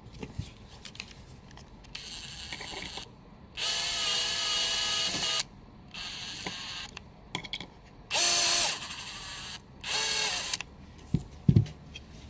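Cordless drill-driver driving wood screws into plywood in five short bursts of motor whine, the two longest and loudest in the middle. A couple of sharp knocks follow near the end.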